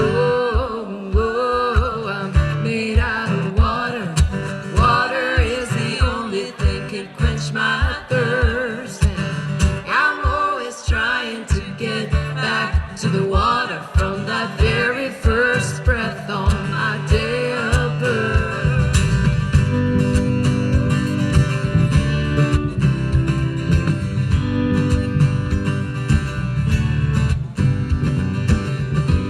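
Live rock band music: drums and electric bass keeping a steady beat under wordless singing, with guitars. The bass and guitars fill out into a fuller groove about eighteen seconds in.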